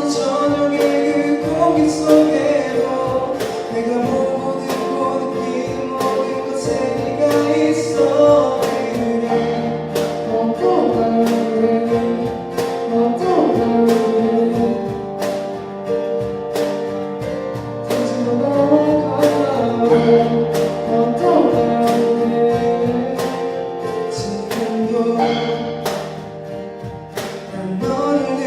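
Male vocals singing a slow pop-rock ballad over acoustic guitar, piano and keyboard, with a regular strummed beat.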